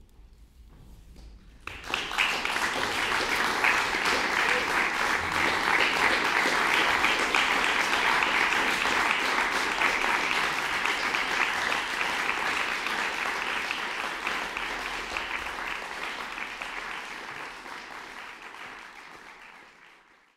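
Audience applauding, starting suddenly about two seconds in and dying away near the end.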